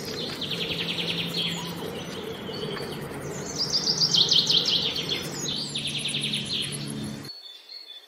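Bird calls at a northern flicker nest hole: several bursts of rapid, high, chattering trills over a steady low background rumble. The sound cuts off near the end, leaving faint high chirps.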